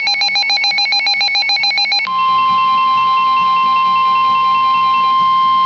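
Emergency alert signal: a rapid, pulsing electronic warble that switches abruptly, about two seconds in, to the single steady warning tone of the National Weather Service alert.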